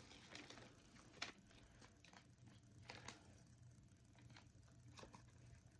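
Near silence, broken by a few faint soft rustles and light clicks as a fabric costume and its packaging are handled.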